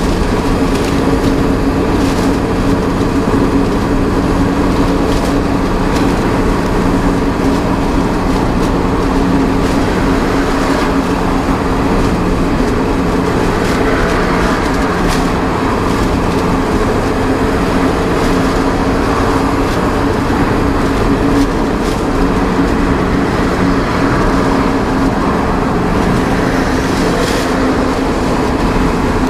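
Steady engine drone and road noise heard from inside a truck cab cruising on a highway, the engine holding an even pitch.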